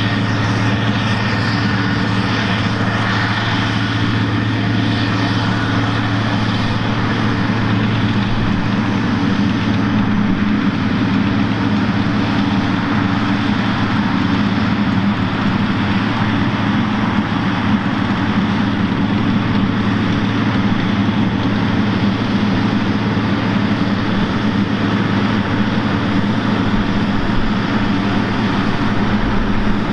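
CAT Challenger tractor's diesel engine running steadily while pulling a scraper pan, a constant low engine drone at an even level.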